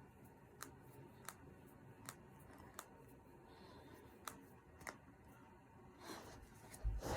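Finger and knuckle joints cracking: about six single sharp pops at irregular intervals of a second or so. A louder muffled rustle of handling comes at the very end.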